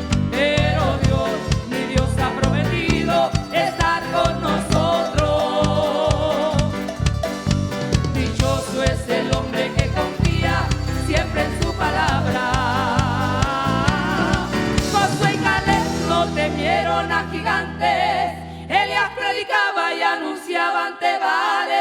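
Gospel choir singing over a band with drum kit and bass, heard through the in-ear monitor mix. About three-quarters through, the drums stop under a long held bass note, and then the bass drops out too, leaving the voices alone.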